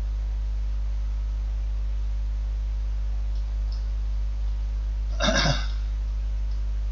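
Steady low electrical hum, typical of mains hum in the recording chain. About five seconds in, a brief vocal sound, a short grunt or 'uh'.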